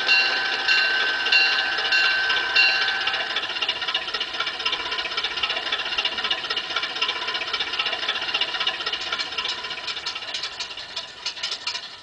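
Zimo sound decoder in a Bachmann Davenport large-scale model locomotive, playing a small locomotive engine sound through its speaker as the model runs, with a rattle. For the first three seconds a steady high tone pulses about every two-thirds of a second, then fades, and sharp clicks come near the end.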